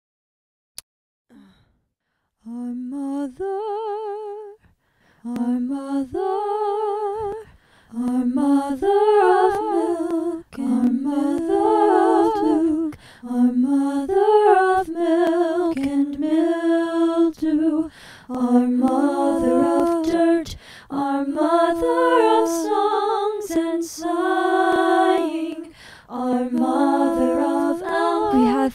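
A woman singing unaccompanied: a slow, lullaby-like melody in short phrases with vibrato, starting a couple of seconds in after a brief click.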